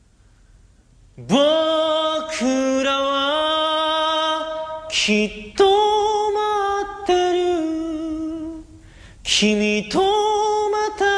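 A solo voice singing a slow song in long, held notes, coming in about a second in after near silence.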